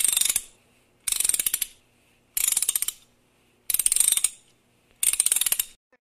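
Intro sound effect: five short bursts of rapid mechanical clicking, each about half a second long and a little over a second apart.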